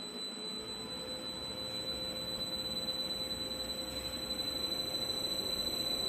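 A 5-litre double sigma blade kneader mixer's drive running as its blades turn forward and are sped up: a steady high whine over a running noise that grows gradually louder.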